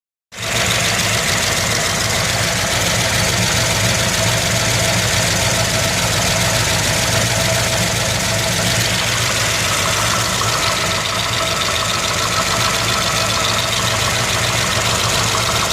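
Engine idling steadily with a fast, even ticking from the top of the engine, which the owner takes for a lifter tick.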